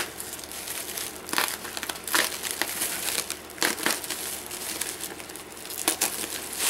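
Plastic bubble wrap crinkling and crackling in irregular bursts as hands pick at it and pull it open.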